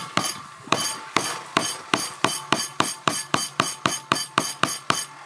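Cleaver striking down on a wooden chopping board in quick, even blows, about four or five a second with a metallic ring to each, as the blade is driven through the hard shell of a Feroniella lucida fruit. The blows start after a short pause.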